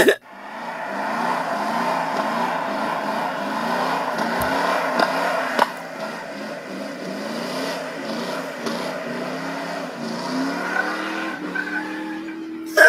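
A 1998 Dodge Ram 1500's 318 (5.2 L) V8 revving hard in a burnout, its rear tyres spinning in dirt. The engine note climbs and drops over and over, then rises in one long climb and holds near the end.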